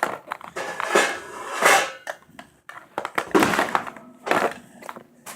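Toy packaging being worked open by hand: several irregular bursts of crinkling, scraping and rustling as it is pulled and torn.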